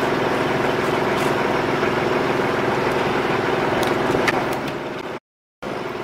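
Chainsaw engine idling steadily. It drops a little past four seconds in, cuts out completely for about half a second near the end, then idles on more quietly.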